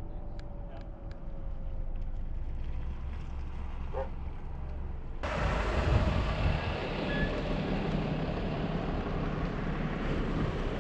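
Car driving on a highway: a steady low hum of engine and tyres. About halfway through it switches abruptly to louder, hissier road and wind noise.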